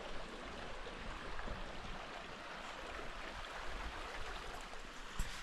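Steady rushing of a small creek flowing over rocks, with a couple of faint knocks near the end.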